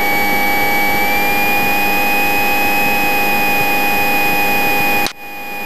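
Light training aircraft's piston engine and propeller droning steadily in the cockpit, the pitch rising slightly about a second in. The sound drops out briefly near the end.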